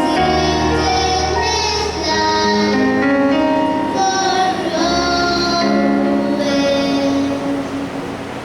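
A prayer song sung by young female voices, held melodic notes over a steady low instrumental accompaniment.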